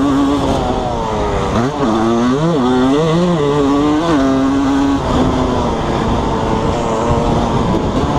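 Suzuki RM125 two-stroke motocross engine being ridden, revving up and down with steadier stretches between.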